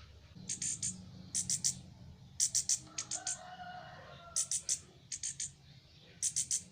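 Young orange-headed thrush (anis kembang) giving quick, harsh, high calls in clusters of two to four, about once a second. A rooster crows faintly about three seconds in.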